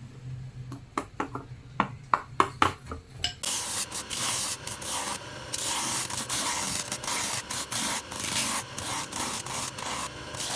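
A run of sharp snapping cuts as a knife trims insole board. Then, a few seconds in, a powered sanding wheel starts grinding the edge of a stacked, built-up shoe sole. It makes a loud steady hiss that breaks off briefly now and then.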